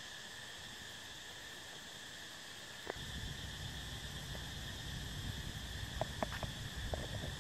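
Insects chirring steadily in a continuous high buzz at several pitches. About three seconds in, a low rumble joins, with a few short faint clicks near the end.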